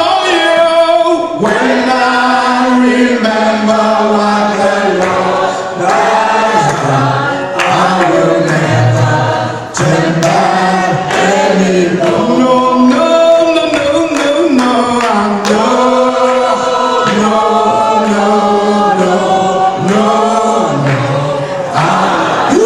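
Several voices singing a gospel worship song together, continuously.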